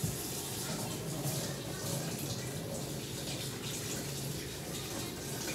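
Kitchen tap running into a stainless steel sink, water splashing as something is rinsed under it. The flow starts suddenly and then stays steady.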